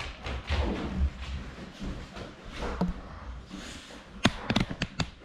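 A large dog's paws and claws scuffing and thudding on a wooden floor as it walks across the room and settles onto its bed, followed near the end by a quick series of sharp knocks.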